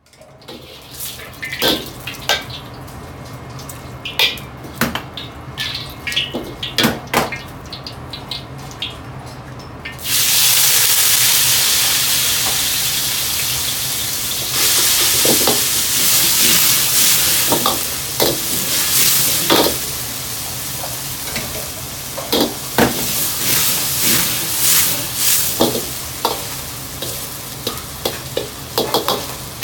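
Egg noodles frying in hot oil in an iron wok: a loud, steady sizzle that starts suddenly about ten seconds in, before which there is only clattering of metal utensils over a low steady hum. Clanks of a ladle against the wok recur throughout.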